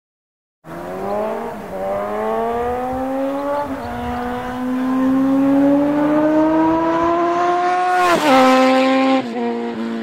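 Honda CB1000R inline-four with a loud aftermarket exhaust, its DB killer removed, accelerating hard through the gears, its pitch climbing with two upshifts in the first few seconds. It passes loudest at about eight seconds, where the pitch drops sharply, then runs on more quietly as it rides away.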